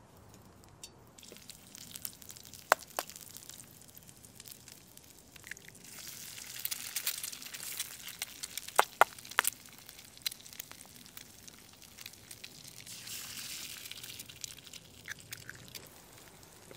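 Eggs and sliced sausage sizzling in a pan over a wood fire, the hiss rising in two spells, with a few sharp pops and cracks.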